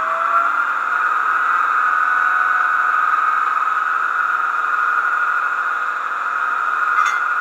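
Sound decoder of an H0 model SNCF BB 7200 electric locomotive playing its stationary locomotive sound: a steady high-pitched whine that finishes rising in pitch at the start, then holds. A short click comes near the end.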